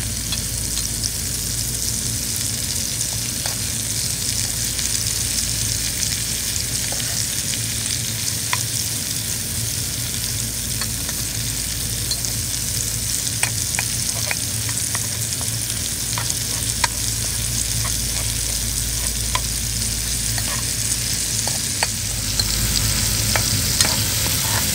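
Garlic, onion, tomato and shrimp sizzling steadily in hot oil in a pan while being sautéed, with a spatula stirring and scraping and clicking against the pan now and then.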